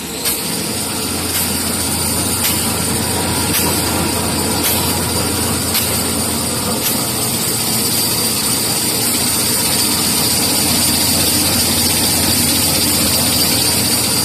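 Kitchen towel paper converting line with glue lamination running steadily: a loud continuous machine hum with a steady high whine over it and a light tick about once a second.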